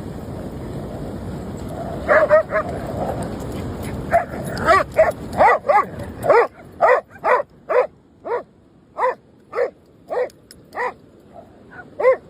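A dog barking repeatedly in short, sharp barks, settling into a steady rhythm of about two barks a second. Under the first half runs a steady rushing noise that stops abruptly about six seconds in.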